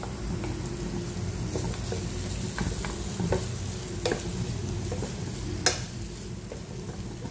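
Stir-frying in a pan: chopped vegetables sizzling in hot oil while being stirred, with a spatula knocking against the pan about five times, the loudest a little before the end.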